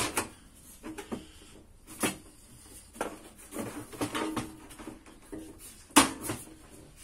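Sheet-metal cover of a Bauknecht appliance's casing being pressed and knocked into place by hand: a string of irregular clacks and knocks, the loudest about six seconds in.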